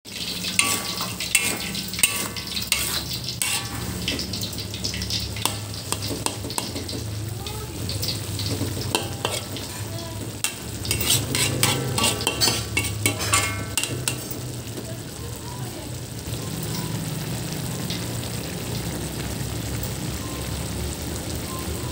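A metal spatula scrapes and clinks against a wok, stirring shredded chayote that is sizzling in its broth. The stirring stops a little past halfway, and the steady sizzle goes on.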